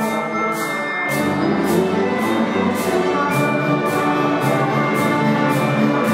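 Ensemble music with sustained chords and a steady, sharp percussive beat about twice a second.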